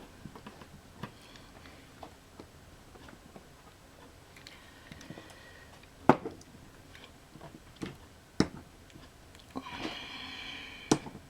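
Light clicks and taps of small parts and weights being handled on a workbench while a model-railway turnout is repaired, with a few sharper knocks, the loudest about six seconds in and another a couple of seconds later.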